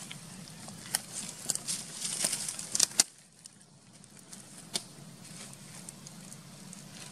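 Dry fallen leaves and twigs crackling and rustling: a quick run of sharp crackles over the first three seconds, then quieter, with one more crackle about two-thirds of the way through.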